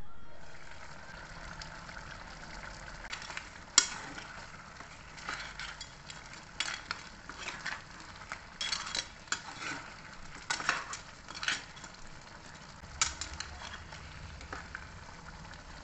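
Crab masala sizzling in a pot, loudest at the start. From about four seconds in, a metal ladle stirs the crabs and gravy, with irregular clinks and scrapes against the pan.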